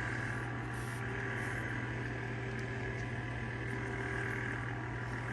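Steady low hum with a faint constant tone above it over room noise, with a few faint soft brushing sounds.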